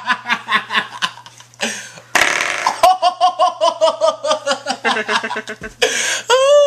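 Spring door stop flicked so its coil spring vibrates with a buzzing, warbling twang that sounds like a fart, pulsing about six or seven times a second. It is set off twice: once at the start and again just after two seconds.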